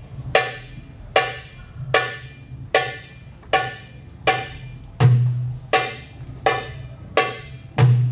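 Darbuka played solo: a steady run of sharp, ringing high 'tek' strokes, about one every three-quarters of a second. Deep 'dum' bass strokes land about five seconds in and again near the end.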